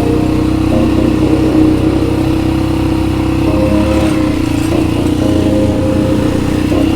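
ATV (quad bike) engine running at a steady speed, its pitch holding level.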